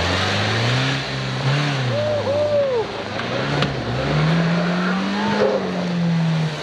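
Kia Sportage's engine revving under load as the SUV climbs a steep sandy hill in low-range second gear, its pitch rising and falling several times. A few short higher whooping tones come in about two seconds in.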